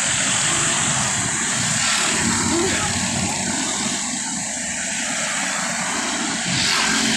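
Steady rushing wind noise buffeting the microphone of a camera carried along on a moving bicycle.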